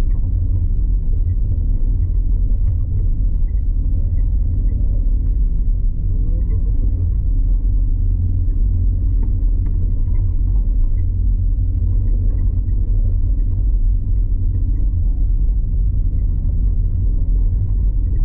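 Steady, loud low rumble with no clear pitch or rhythm.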